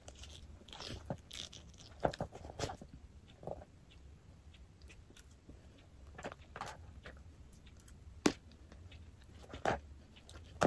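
Metal knife and fork cutting ribs in a plastic takeout container: scattered clicks and scrapes of cutlery against the plastic, the sharpest about two, eight and nine and a half seconds in, with chewing between them.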